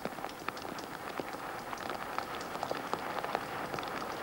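Rain falling onto wet terracing: a steady hiss with many separate drops ticking and splashing throughout.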